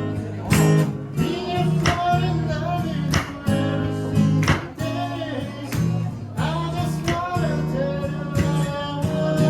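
Acoustic guitar strummed in a steady rhythm of chords, with a wordless vocal line wavering over it.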